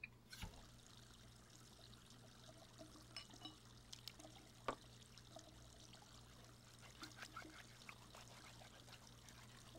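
Kitchen tap water running quietly into the sink, with a few light clicks and clinks of dishes being handled, the sharpest about halfway through.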